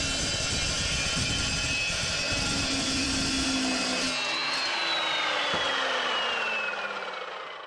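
Evolution metal-cutting chop saw cutting through a rusty steel tube with a loud, steady grinding noise. About four seconds in the cut ends, and the saw's motor winds down with a whine that falls steadily in pitch and fades.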